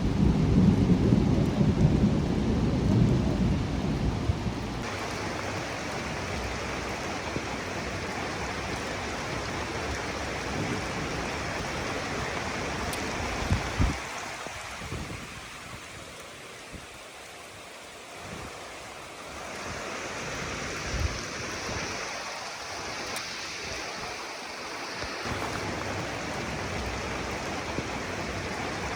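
Steady heavy rain with a deep thunder rumble in the first few seconds. The rain eases for a few seconds around the middle, with a couple of single sharp thumps, then picks back up.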